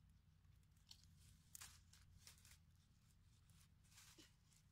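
Faint rustling and crackling of dry bamboo leaves and twigs as an arm pushes through a dense thicket, a few scattered crackles over a low steady hum.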